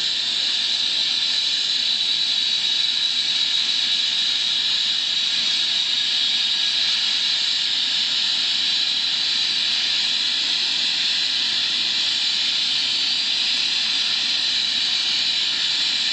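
Air ambulance helicopter running on the ground: turbine engines and rotor make a loud, steady high-pitched hiss that holds the same pitch throughout.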